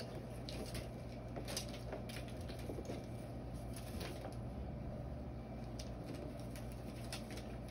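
Scattered light taps and rustles as plastic boxes with paper-strip curtains are picked up and set down on carpet, over a steady low room hum.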